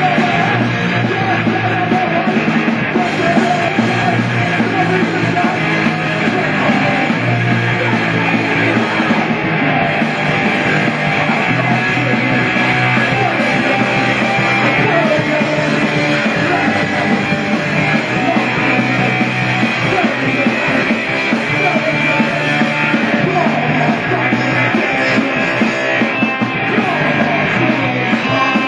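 A punk rock band playing a song live, loud and without a break.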